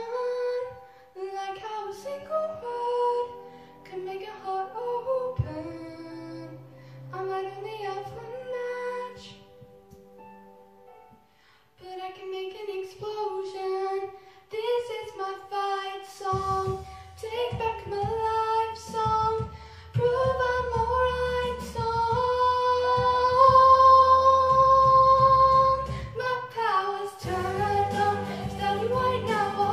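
A girl singing a pop ballad into a handheld microphone over backing music. After a quiet dip about ten seconds in, the accompaniment fills out with a low beat from about sixteen seconds, and she holds a long, loud note a little after twenty seconds.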